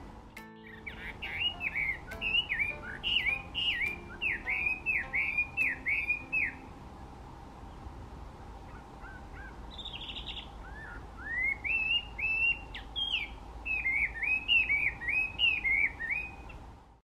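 Chinese hwamei singing: a loud run of repeated notes, each falling quickly, then a few seconds of softer scattered notes. Some rising notes follow, then another fast run of repeated falling notes.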